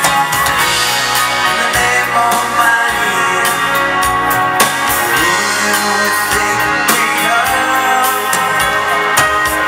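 Live dance band playing a foxtrot on electric guitars, keyboards and drum kit, loud and amplified.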